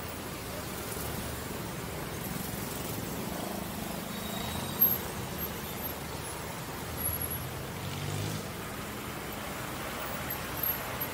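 Road traffic noise: a steady low rumble of car and bus engines and tyres, with a short, sharp knock about five seconds in and a few smaller ones later.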